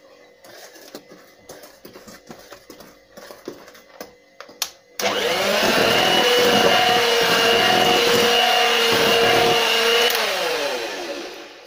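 Electric hand mixer beating flour into cake batter in a steel bowl: after a few light clicks and taps, it starts abruptly about halfway through and runs at speed with a steady whine. About 10 s in it is switched off and its motor winds down, the pitch falling away.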